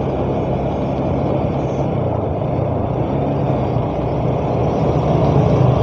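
Motor scooter riding at a steady road speed: its engine hums steadily under wind and road noise, getting slightly louder near the end.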